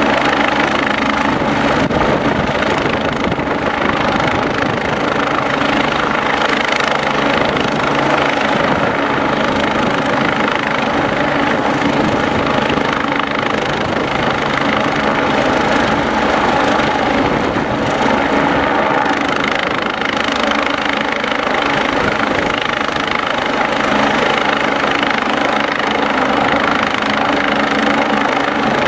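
Police helicopter running steadily, its turbine and rotor giving an even drone with a thin, constant high whine.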